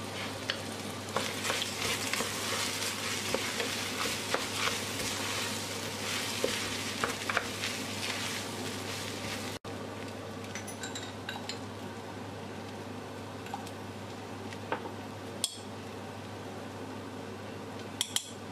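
Red lentils, bulgur, rice and diced vegetables frying in oil and paste in a pressure-cooker pot, sizzling, while a wooden spoon stirs and scrapes them around. About ten seconds in the sizzle cuts off suddenly to a quieter hiss with only occasional spoon clicks, and near the end a few sharp clicks of a metal spoon against the pot.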